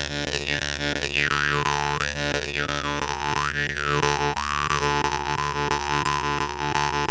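Jaw harp (vargan) playing a steady low drone, its bright overtone sweeping up and down in a wah-like rhythm about once a second, then held steady for the last couple of seconds.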